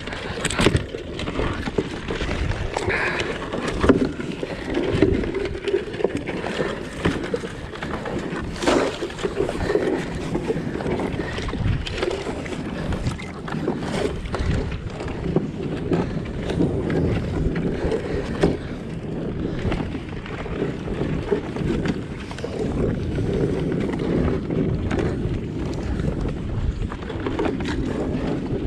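Water sloshing around a kayak with rumble on the microphone, broken by occasional sharp knocks and clatter.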